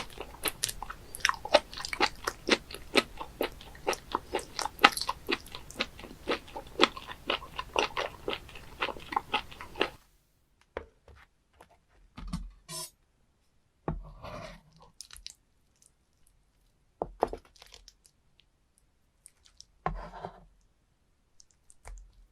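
Close-miked chewing of raw live octopus: sharp mouth clicks, about three a second. About ten seconds in the sound cuts to quiet, and a few scattered chews follow.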